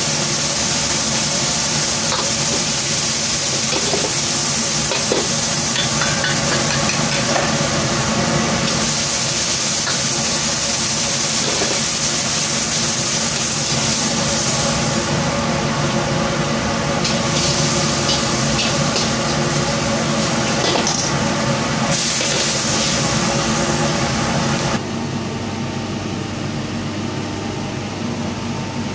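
Meat and celery stir-frying in a wok over a high-flame gas burner: a loud, steady sizzle with the stirring of the ladle, over a constant low hum from the burner. About four seconds before the end the sizzle stops and a quieter hum remains.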